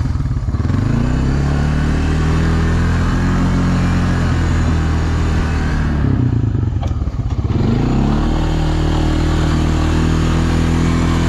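1999 Honda FourTrax 300 ATV's single-cylinder four-stroke engine running under throttle. The revs climb about half a second in, sag briefly around six seconds, then rise again to a steady higher pitch.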